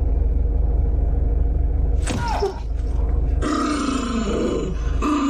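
Cat purring loudly close to the microphone, a deep, fast, even pulsing. A short falling cry comes about two seconds in, and a longer wavering vocal sound follows from about three and a half seconds.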